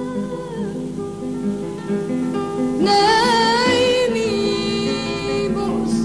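Lebanese song with plucked-string accompaniment; about three seconds in, a female voice comes in, holding a long wavering note over the band.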